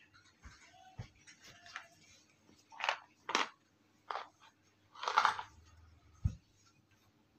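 Cloth rustling in several short swishes as fabric pieces are handled and moved on a table, the longest about five seconds in, with a couple of soft knocks.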